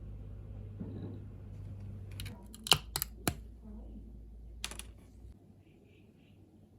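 A low steady hum with a handful of sharp clicks in the middle, three close together and one more a second or so later; the hum stops about two-thirds of the way through.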